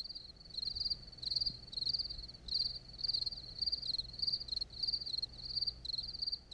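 Cricket chirping in an even rhythm, about three short high trilled chirps every two seconds.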